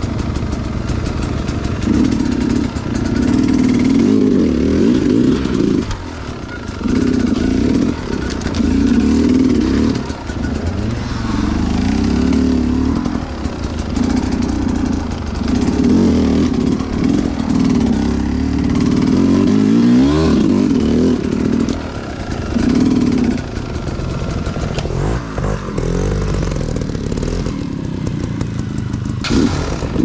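300cc two-stroke dirt bike engine worked in short repeated bursts of throttle, swelling and dropping about once every second or two, with one longer rising rev about two-thirds of the way through.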